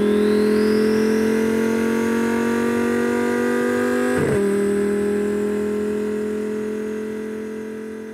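Twin-turbo Lamborghini Huracán V10 engine pulling hard at high revs, with a high whine rising over the first two seconds and a quick upshift about four seconds in. The sound then fades out gradually.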